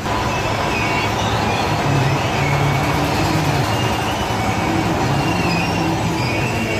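Steady mechanical din of fairground ride machinery around a giant Ferris wheel, with a low hum and faint high-pitched squeals coming and going.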